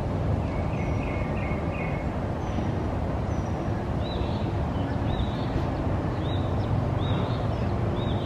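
Outdoor background noise, a steady low rumble, with a bird calling over it: a few notes in the first two seconds, then short chirps about once a second from about halfway.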